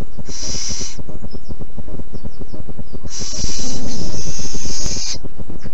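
Little owl making wheezy hissing calls: a short hiss about half a second in, then a longer, louder one of about two seconds, over a constant low crackle.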